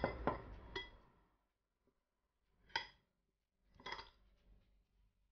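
Metal spoon clinking against a glass bowl while stirring sugar into crumbly steamed wheat puttu: a few light clinks in the first second, then a sharp ringing clink about three seconds in and another about a second later.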